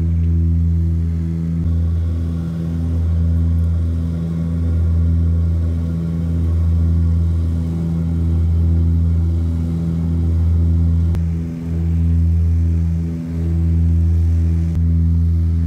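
Cabin drone of an Antonov An-24RV's two Ivchenko AI-24 turboprop engines and propellers: a loud, steady low hum that swells and fades about every one and a half to two seconds, the beat of the two propellers turning at slightly different speeds.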